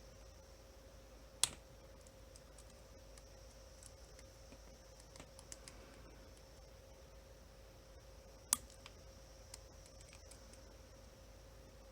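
Lock pick and tensioner working the pin-tumbler cylinder of an OnGuard cable lock: faint, scattered ticking of the pins, with one sharp click about a second and a half in and another past the middle, over a faint steady hum.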